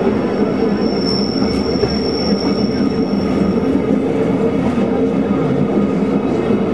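Rhaetian Railway Bernina line train running on its rails, heard from on board: a steady rumble of the wheels and carriage, with a thin, high steel-wheel squeal held from about a second in to about halfway.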